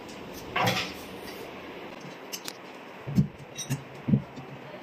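A few light knocks and clicks from a metal TV wall bracket being set and shifted against a wooden wall panel. A short rustle comes near the start, and scattered taps follow in the second half.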